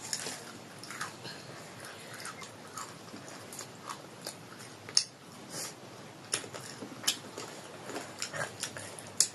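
A person chewing and biting food close to the microphone: irregular soft wet clicks and smacks, a few of them sharper.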